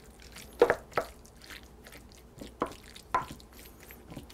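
Wooden spoon stirring and pressing a gravy-moistened mince and vegetable filling in a glass baking dish: a few short, wet clicks and squelches, the two loudest close together about a second in.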